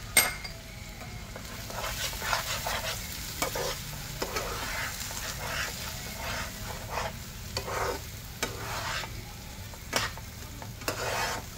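Metal spatula stirring and scraping thick semolina halwa around a nonstick frying pan, with repeated irregular scraping strokes over a soft sizzle of ghee. A sharp knock just at the start.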